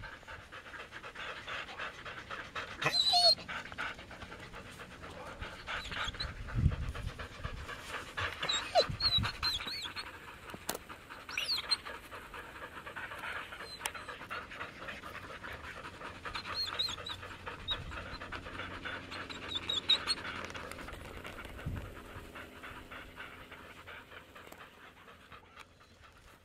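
Several Samoyed sled dogs panting hard and fast together, cooling down during a rest stop on a warm day. A few brief high squeaks come through at times.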